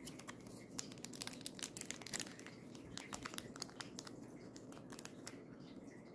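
Foil wrapper of a Pokémon Trick or Trade booster pack crinkling as it is picked up and handled, a run of faint, sharp crackles.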